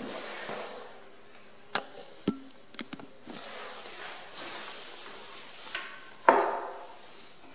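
Quiet restroom room tone with a few sharp clicks and knocks, then a louder clatter about six seconds in as the toilet's seat lid is lifted.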